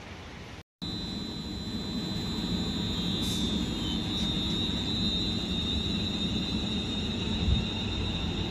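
London Northwestern Railway Class 350 Desiro electric multiple unit running past along the platform: a steady rumble of wheels on rail with a steady high whine over it. Under a second in there is a brief cut to silence, after which the train sound comes in.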